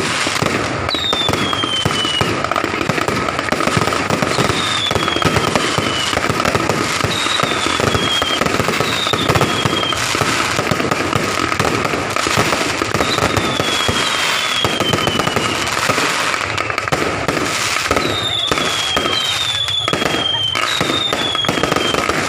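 Fireworks going off without pause, a dense rapid crackle of pops. Over it come about ten short whistles, each falling in pitch over about a second, bunched more thickly near the end. A steady high tone runs underneath.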